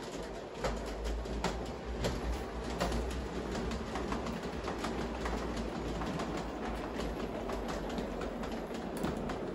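G-scale model electric train, a locomotive and passenger cars, running on the track: a steady run with irregular sharp clicks of wheels over the rail joints and a low rumble.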